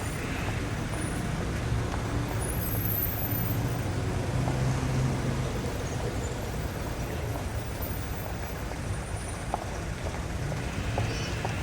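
City street traffic: a steady rumble of vehicle engines and tyres. A heavier engine grows louder around four to five seconds in, and a few light clicks come near the end.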